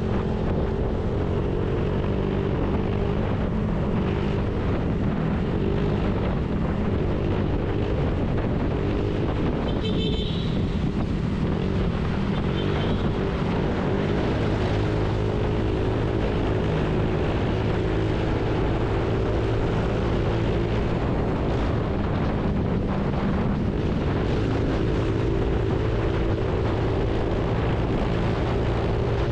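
Honda Click 150 scooter's single-cylinder engine running steadily under throttle as the bike picks up from about 60 to 100 km/h, with wind rushing over the microphone.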